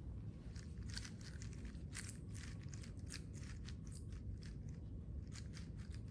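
A Rubik's cube being scrambled: quick, irregular clicks of its plastic layers turning, coming in clusters. A steady low rumble of room noise lies underneath.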